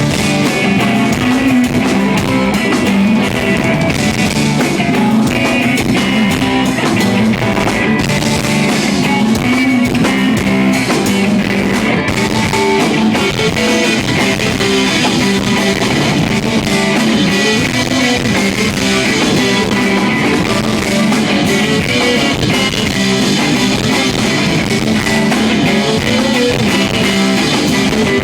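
Live rock band playing, with guitars and a drum kit, loud and steady throughout.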